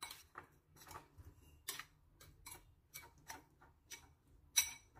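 A metal spoon clicking and scraping against a ceramic bowl as marinated straw mushrooms are stirred. The light clicks come irregularly, about two to three a second, with the loudest near the end.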